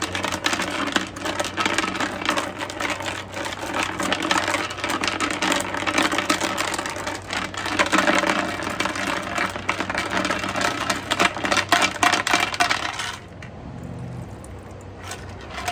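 Loose metal screws and nuts being shaken and rattled inside a container to scour out debris, a dense clatter that stops about 13 seconds in.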